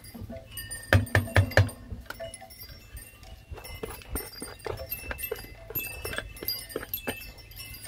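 Plastic food container knocked against the rim of a cast iron Dutch oven to shake out chopped onion: four sharp knocks about a second in, followed by lighter clicks and taps.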